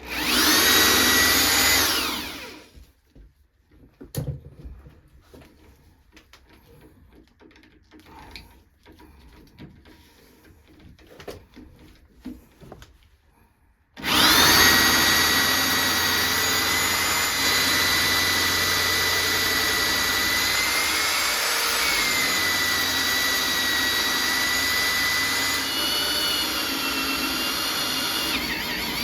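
Corded electric drill boring a hole through an oak door: a short run of about two seconds, a pause with a few light knocks, then a long steady run from about halfway through with a constant whine.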